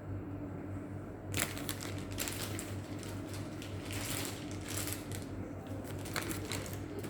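An irregular run of sharp clicks, taps and scrapes from handling a laptop, starting about a second and a half in, over a steady low hum.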